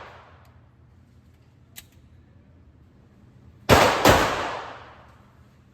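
Two handgun shots fired in quick succession, about a third of a second apart, near the middle, each followed by the long echo of an indoor range. A small, faint click comes about two seconds earlier, as the echo of a previous shot dies away.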